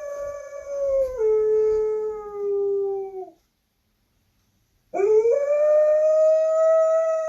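A dog howling in two long, held howls. The first steps down in pitch partway through and fades out; after a short silent gap, the second rises in pitch and then holds steady.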